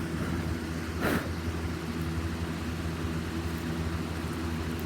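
Steady low machine hum made of several even tones, with one brief hiss about a second in.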